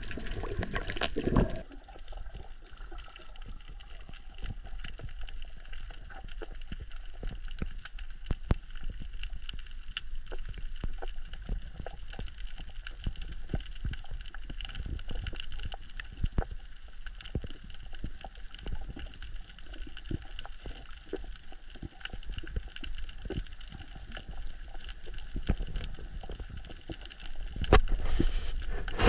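Underwater sound on a diver's camera: a steady muffled hiss with a dense crackle of small clicks. Louder water bubbling and churning until about a second and a half in, and again just before the end.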